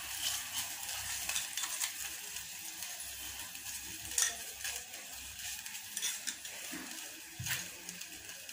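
Hot tempering liquid, water over oil with mustard seeds, curry leaves and green chillies, sizzling in a stainless-steel pot as sugar is added and stirred in, with a few scattered clicks against the pot.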